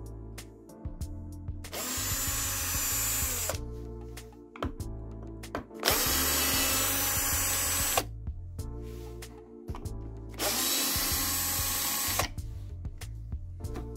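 Power drill running in three bursts of about two seconds each, backing screws out of the soundbar's casing, over background music with a steady bass line.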